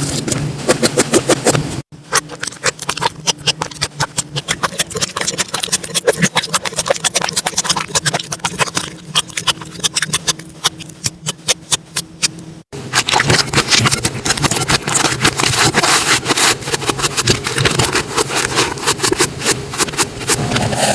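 Slime being squeezed and poked by hand, giving rapid wet crackling clicks and pops. The sound changes abruptly twice, about two seconds in and about two-thirds of the way through, as one clip gives way to the next.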